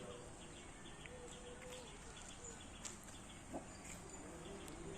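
Quiet rural background: faint bird chirps, with a faint drawn-out call in the distance twice.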